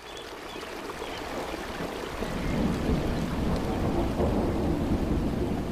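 Rain and thunder sound effect: a steady hiss of rain, with a low rumble of thunder building about two seconds in and rolling on.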